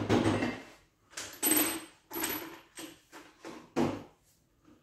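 Metal parts or tools clanking and clattering as they are handled and set down, in about six separate knocks with short gaps between them.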